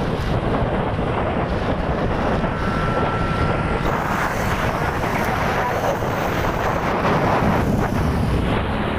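Wind buffeting the camera microphone outdoors: a loud, steady rumbling roar.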